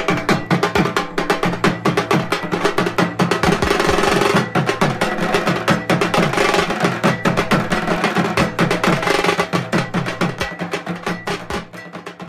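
Fast drum-led percussion music: rapid, dense drum strokes over a steady pitched drone, fading out near the end.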